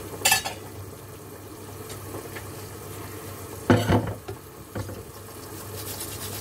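Chicken and bell pepper pieces simmering in soy-sauce liquid in a pot on the stove, a steady low bubbling. Two sharp knocks stand out, about a third of a second in and again near four seconds in.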